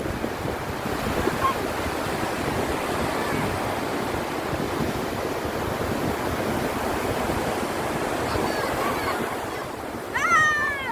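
Surf breaking and washing up the beach: a steady rushing noise. Near the end, a few short high calls ring out over it.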